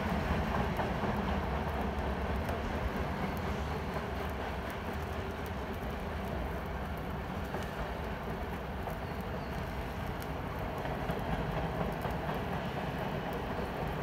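Freight train of tank cars and boxcars rolling past on the track, a steady low rumble with no break.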